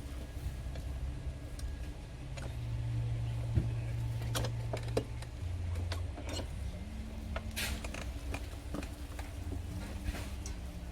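An engine or motor running steadily with a low hum whose pitch shifts a few times. Scattered sharp clicks and knocks sound over it.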